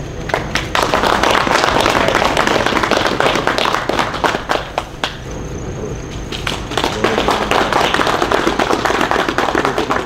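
A crowd of soldiers applauding, a dense patter of clapping that eases off briefly about halfway through and then picks up again.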